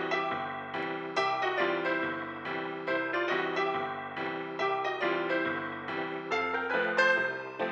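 Background piano music: a steady stream of notes over a moving bass line.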